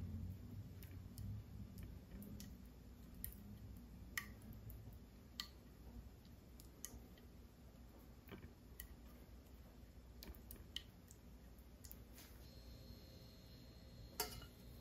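Faint, scattered clicks and light taps of a metal spoon against a ceramic plate as meat sauce is spread, with one sharper clink near the end.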